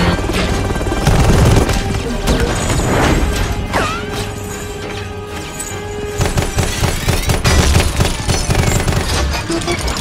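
Action-film fight soundtrack: score music with rapid gunfire and heavy booming impacts.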